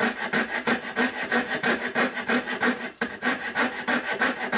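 Hand fret saw cutting a curved design in half-inch plywood, the fine blade rasping back and forth in quick, even strokes, with a brief break about three seconds in.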